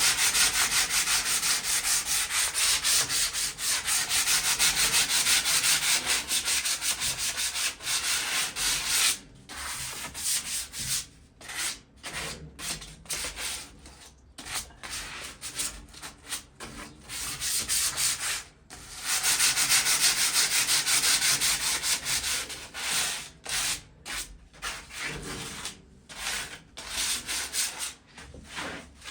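Hand sanding of surface rust on a metal patio chair: sandpaper scraping in fast back-and-forth strokes. It runs steadily for the first several seconds, comes in short bursts with gaps through the middle, picks up steadily again for a few seconds, then goes back to bursts.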